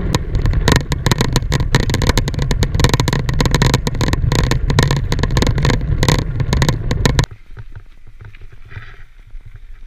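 Mountain bike being ridden, heard from a camera mounted on the bike: steady wind rumble on the microphone with rapid rattling knocks over rough ground. About seven seconds in it drops suddenly to a much quieter rolling sound of tyres on snow.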